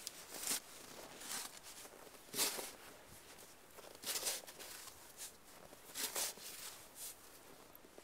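Snow shovel scooping and scraping through snow: a short scraping crunch about every two seconds, four strokes in all.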